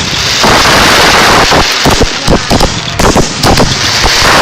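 Firework display finale: a dense barrage of shell bursts, several bangs a second over continuous crackling.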